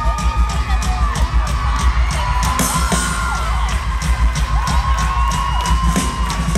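Drum kit played live on stage, kick drum and cymbals keeping a steady beat, with the audience screaming long, high-pitched screams over it.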